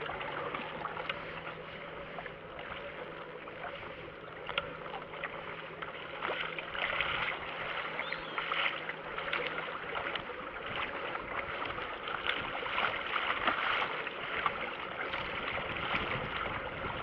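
Water splashing and lapping against a moving kayak's hull in choppy water, with small splashes throughout.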